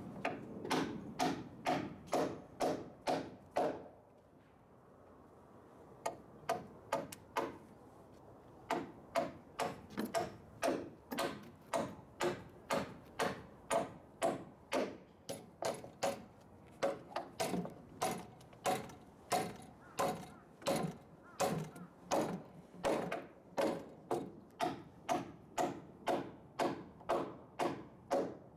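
Hammer driving nails into wooden roof rafters, steady blows about two to three a second, with a short pause about four seconds in before the hammering picks up again.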